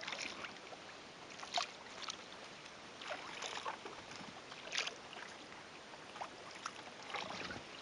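Kayak paddle blades dipping into flat, calm water: soft, irregularly spaced splashes and drips over a faint steady hiss.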